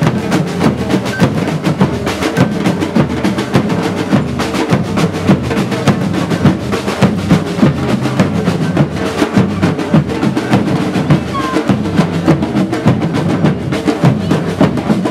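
Batucada drum group playing a fast rhythm of dense, continuous drum strokes.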